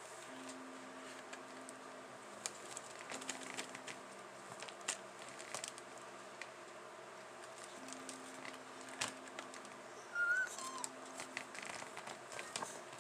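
Faint clicks and crinkles of small plastic candy-kit parts and a plastic bag being handled, over a low hum that comes and goes. About ten seconds in there is a short, high squeak that drops in pitch.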